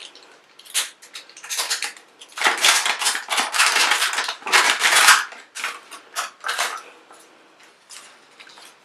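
Plastic wrapping of an LOL Surprise ball crinkling as a layer is unwrapped by hand, in a run of crackly bursts, loudest and most continuous from about two and a half to five seconds in.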